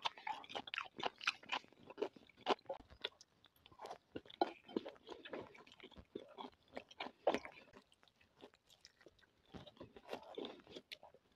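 A person chewing close to the microphone, with irregular crunches and wet mouth clicks from a mouthful of fresh cucumber and pasta; the chewing goes quieter for a second or two a little past the middle.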